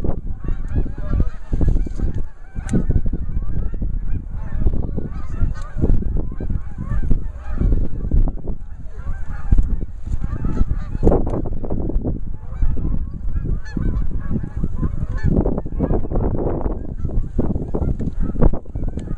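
Geese honking, many overlapping calls repeated over and over.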